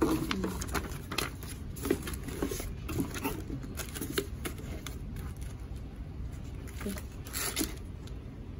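Handling noise as a new laptop is moved about in its cardboard box: scattered light taps and knocks, with a brief rustle about seven and a half seconds in.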